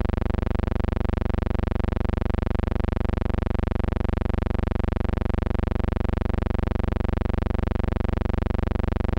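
A steady buzzing hum with many overtones, flickering rapidly and evenly, with no change throughout.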